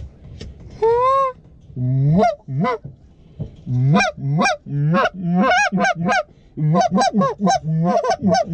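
Hand-blown goose calls sounding a run of honks and clucks, each note breaking upward in pitch. The notes come few and spaced at first, then fast and close together from about four seconds in, calling to geese circling the decoy spread.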